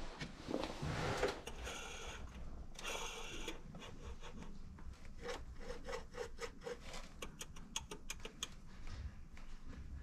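Clutch release bearing on a split Deutz DX90 tractor's gearbox input shaft being gripped and turned by hand to check it for play. First comes a scrape and rustle of handling, then a run of short rubbing clicks, about three a second.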